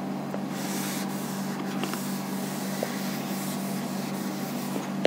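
Whiteboard duster rubbing across a whiteboard in repeated wiping strokes, erasing marker writing.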